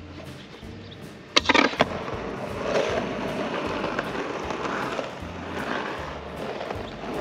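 Skateboard on soft 93a Powell Peralta Dragon urethane wheels rolling over rough asphalt, a low, even rolling sound. A quick cluster of sharp clacks comes about one and a half seconds in.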